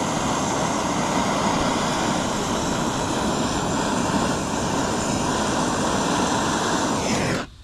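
Handheld gas torch burning with a steady roar as its flame heats a copper radiator joint for soldering. The torch is shut off near the end, and the roar cuts out suddenly with a short falling whistle.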